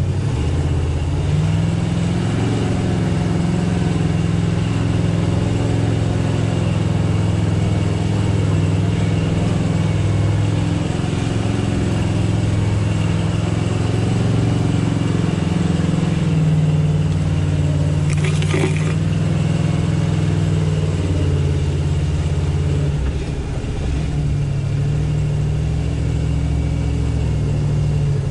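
Off-road vehicle's engine running at a steady low speed, with a brief clatter about two-thirds of the way through.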